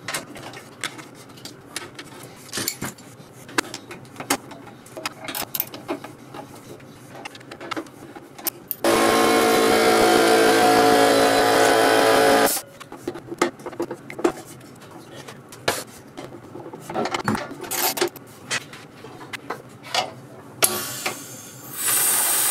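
Small clicks and taps of hand work on the DeWalt Emglo air compressor, then, about nine seconds in, the freshly repaired compressor's motor and pump run loudly and steadily for about four seconds and stop abruptly. Near the end a loud hiss of compressed air.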